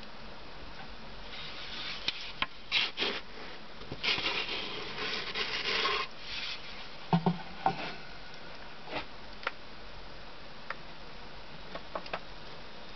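Wooden pizza peel scraping and sliding across the brick oven floor in a run of rasping strokes as it is worked under the pizza to turn it, followed by a few sharp clicks.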